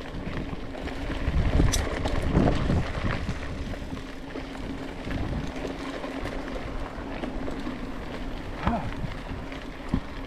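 Mountain bike riding along a forest trail: tyre rumble and rattle of the bike, with wind buffeting the microphone and a steady low hum underneath.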